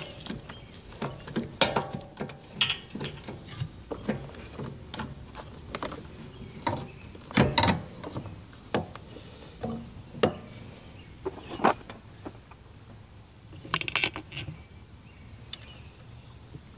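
Irregular clicks and knocks of hand tools and metal parts being handled on a mower engine, with one louder knock about halfway through.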